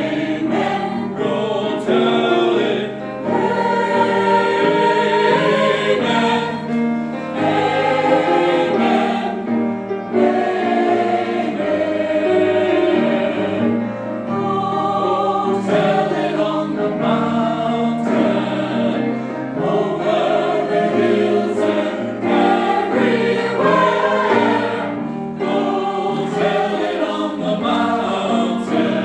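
Church chancel choir singing a Christmas piece, several voice parts holding and changing notes together without a break.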